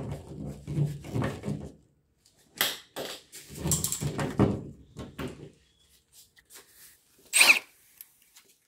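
Receptacle mounting screw being turned by hand with a screwdriver into a plastic electrical box, creaking and squeaking in bursts with a few clicks. A sharp knock near the end is the loudest sound.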